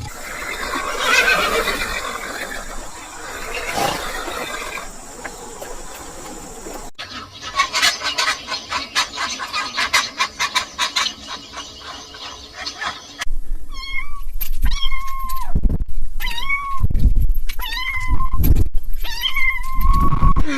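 A cat meowing over and over in the second half, loud, drawn-out calls that bend in pitch. Before it come a noisy, jumbled stretch and then a run of rapid, evenly spaced pulses.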